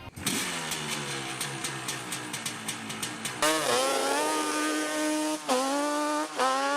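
Motorcycle engine: first a noisy stretch with a falling engine note, then from about halfway the revs climb hard and drop sharply twice as it shifts up through the gears under acceleration.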